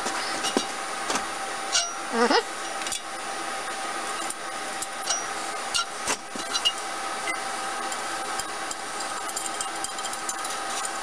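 Light metallic clicks and clinks of nuts and washers being handled and started by hand on the exhaust manifold studs of a three-cylinder engine, over a steady background hum. A short wavering sound about two seconds in is the loudest thing.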